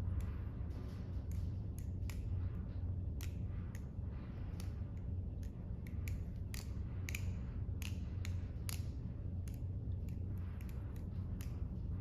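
Stainless-steel balisong (butterfly knife) being flipped: irregular metallic clicks and clacks as the handles swing around the blade and knock together, over a steady low hum.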